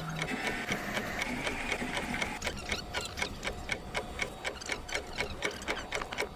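Rapid, even ticking, about four ticks a second, like a clock-style beat.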